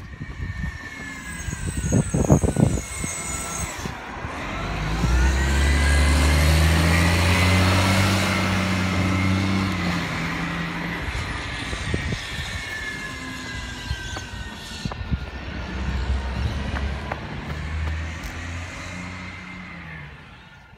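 Side-loading garbage truck's diesel engine pulling away and accelerating down the street, with a thin high whine over it; it eases off, then picks up again near the end. A few sharp thumps come about two seconds in.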